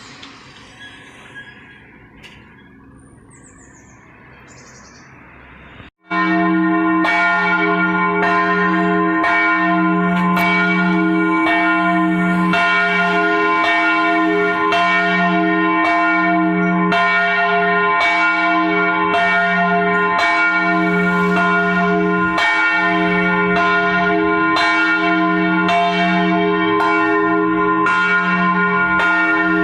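Big church bells ringing in a full peal, with overlapping strikes coming more than once a second and a steady, loud ring between them. The ringing starts abruptly about six seconds in, after faint background noise.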